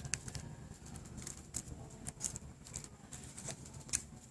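Irregular small clicks and light crinkling of hands handling and unwrapping a small jewelry packet.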